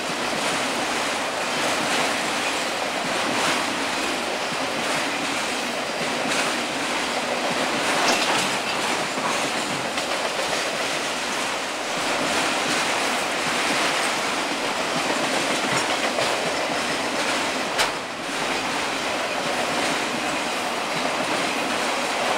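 Union Pacific autorack freight cars passing close at speed: a steady rumble and rattle of steel wheels on rail, with clicking over the rail joints. One sharp click late on.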